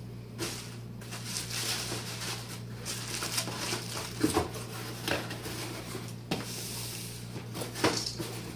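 Plastic bubble-wrap packaging and a cardboard box rustling as they are handled, with a few light knocks of items set in the box and the lid being closed.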